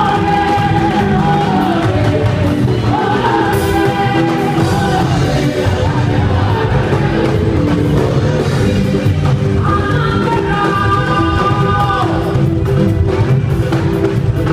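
Loud music with a singing voice over a steady bass and drum backing; the sung lines come in short phrases with breaks between them.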